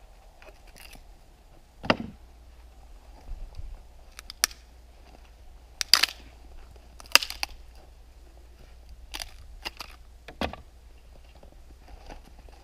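Firewood being split with an axe on a chopping block: one heavy thud about two seconds in, then several sharper wooden knocks and clacks as the split pieces are handled.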